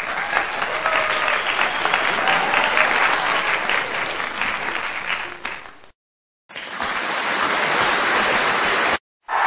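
Stock applause sound effect: a crowd clapping densely, cutting off suddenly about six seconds in. After a short silence a duller stretch of crowd noise starts and runs on.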